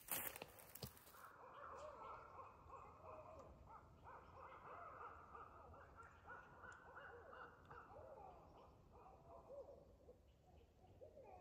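Several owls hooting at a distance, their calls overlapping and running on one after another.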